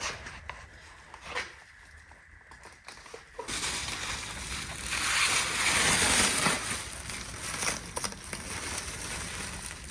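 A few faint clicks, then from about three and a half seconds in a rustling, crackling handling noise that is loudest a little past the middle.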